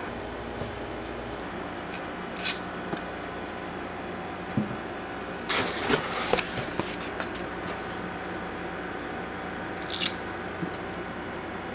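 Hands rustling the mesh fabric and cloth lining a box of apples while lifting the fruit out: a few short rustles, with a longer bout of rustling and soft knocks in the middle, over a steady low hum.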